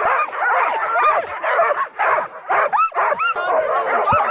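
A pack of sled dogs barking, yipping and whining all at once in a constant, overlapping din, the noise of a team excited and waiting to run.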